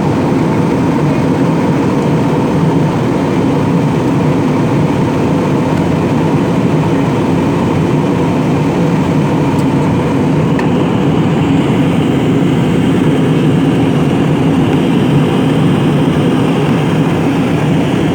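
Steady cabin noise of an airliner in flight: an even rush of engine and airflow noise with a faint steady hum.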